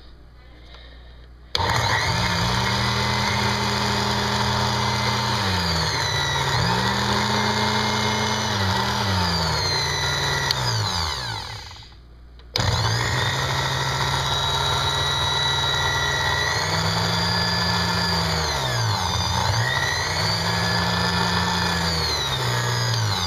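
Countertop blender switched on about a second and a half in, its motor running about nine seconds with the pitch dipping and recovering as the blades work through a thick, chunky food mixture, then winding down. It is switched on again a moment later and runs for about ten more seconds, its pitch sagging and recovering again.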